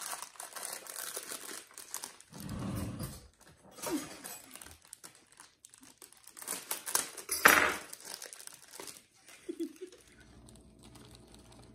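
Plastic inner bag of a boxed yellow cake mix crinkling and rustling as it is handled and torn open, loudest a little past halfway. The crinkling stops about ten seconds in.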